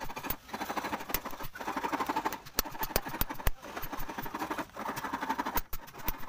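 Small hammer tapping rapidly on brass sheet, with a few sharper, louder strikes among the fast taps.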